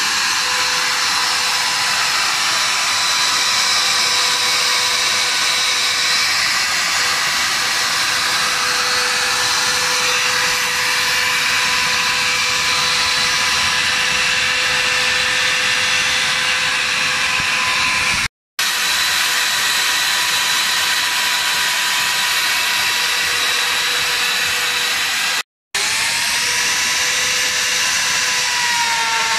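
Einhell plunge router motor running with a steady high whine as it cuts into a wooden cutting board. The sound drops out twice for an instant.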